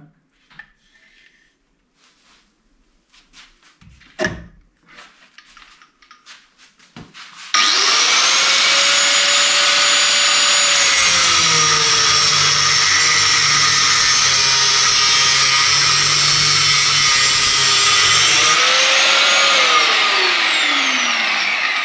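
Angle grinder starting up about a third of the way in, its whine dipping in pitch as the disc bites into a metal bar and cuts steadily for about seven seconds. Near the end it comes out of the cut, and the motor winds down with a falling whine once switched off. A few light handling clicks come before it.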